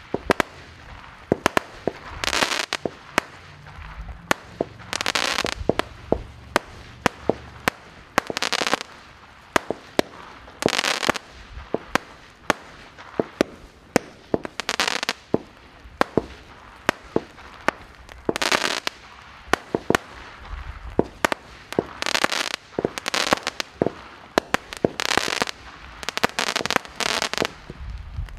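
Magnum Series Moon Cake firework cake firing shot after shot: many sharp pops and bangs, with a half-second burst of crackle every one to three seconds.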